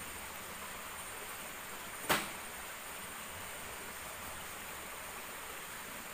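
A single sharp knock about two seconds in, over a steady hiss.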